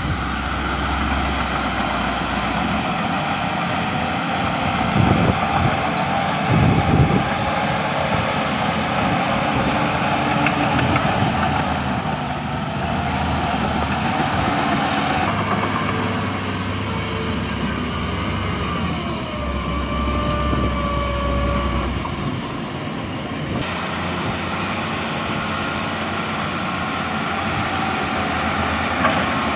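Heavy diesel earthmoving machinery running steadily, with a couple of heavy thumps about five and seven seconds in and a brief squeal that falls in pitch near the twenty-second mark.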